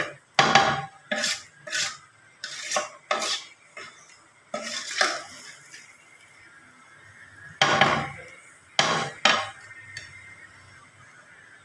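Wooden spatula stirring vermicelli into water in a metal cooking pot, scraping and knocking against the pot in a string of uneven strokes, with a pause of about two seconds midway.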